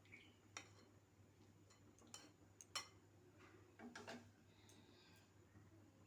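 A few scattered light clicks and taps at irregular times over quiet room tone. The sharpest comes about three seconds in, followed by a short cluster of taps about a second later.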